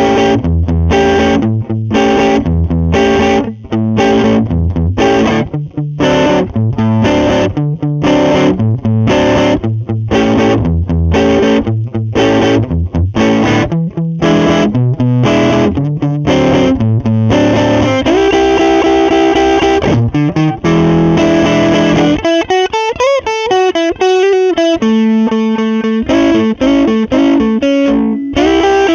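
Electric guitar, a Telecaster with a Seymour Duncan Jazz humbucker, played through a Lovepedal Blackface Deluxe overdrive pedal with the gain at 12 o'clock. It plays short, choppy chords several times a second, then held, ringing chords, and about two-thirds of the way through a lead phrase with string bends and vibrato.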